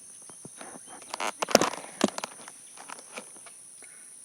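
Handling knocks, clicks and rustles from a hand-held camera being turned around, with the sharpest knocks about one and a half and two seconds in, over a steady high-pitched hum.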